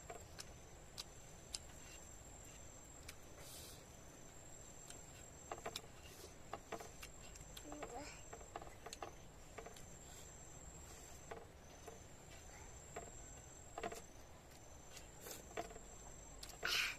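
Crickets trilling steadily in a high pitch, with a second pulsing trill just below it, over scattered soft clicks and smacks of someone eating, and a short louder rustle near the end.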